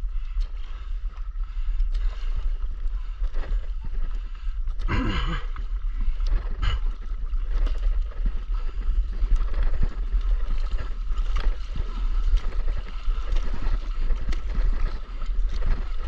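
Paddle strokes splashing and water gurgling against a paddleboard, in irregular dips, over a steady low rumble on the microphone. A short louder burst comes about five seconds in.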